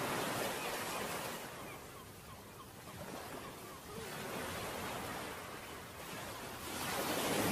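Gentle sea surf and wind on a sandy beach: a soft rushing noise that swells and fades a few times.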